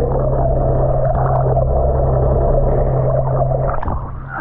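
Muffled underwater sound picked up by a GoPro held below the surface: a steady low hum with a wavering rush of water over it. About four seconds in it drops away as the camera comes up to the surface.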